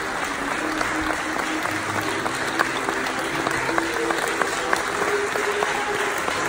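A hall full of people clapping steadily, with faint music playing underneath.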